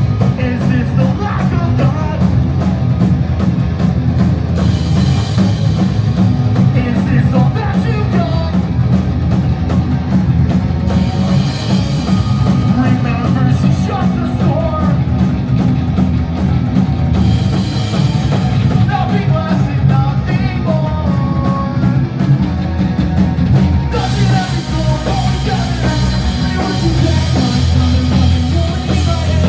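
Pop-punk band playing live: fast drums, distorted guitars and bass, with a sung lead vocal coming and going over the music.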